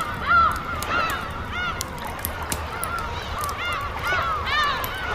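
Gulls calling over and over, many short arched cries overlapping, with sharp crackles of a campfire and a low, steady surf rumble beneath.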